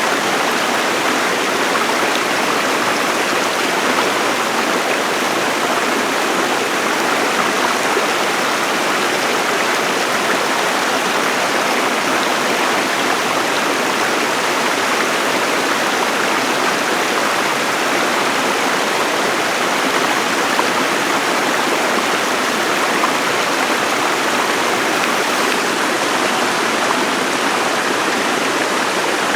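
Bunch Falls cascading down, a steady even rush of falling water.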